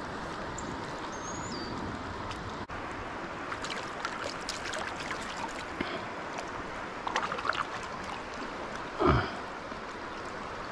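Stream water running steadily, with scattered small splashes and clicks and a short thump about nine seconds in.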